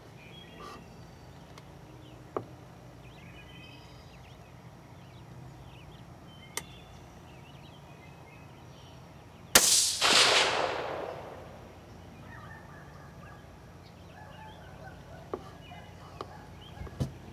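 .17 HMR rifle firing a single shot about ten seconds in: a sharp crack, a second crack about half a second later, then a tail fading over about two seconds.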